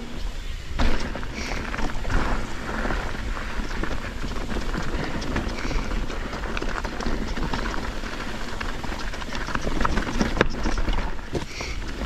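Mountain bike descending a dirt trail at speed: tyres rumbling over the ground and the bike clattering over bumps, with wind rumbling on the microphone. A sharp clunk about a second in stands out.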